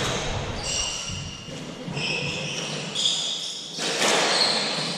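Squash players' shoes squeaking in short, high squeals on the court floor during a doubles rally, with thuds of the hardball.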